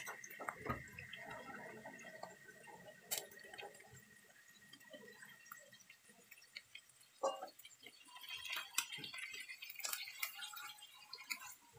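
Salmon steaks frying in a nonstick pan without oil: faint, scattered crackling and small pops, then a plastic spatula scraping against the pan and fish near the end.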